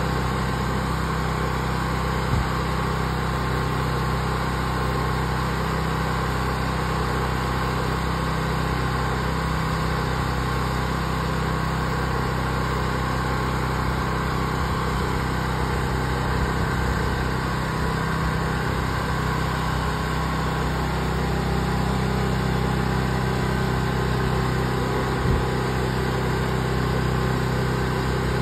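Engine of an all-in-one pressure washer and soft wash machine running at a steady speed while it supplies a spray wand.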